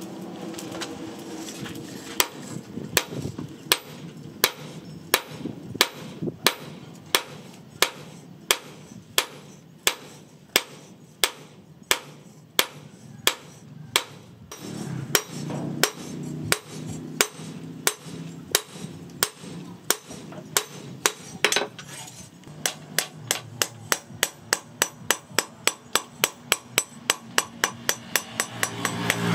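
Hand hammer striking a red-hot steel machete blade on a steel post anvil while it is forged into shape: a steady run of metal-on-metal blows about one and a half a second, with brief pauses and a slightly quicker pace near the end.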